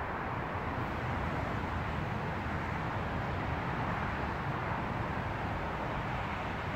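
Steady outdoor ambient noise: an even hiss and low rumble with no distinct events.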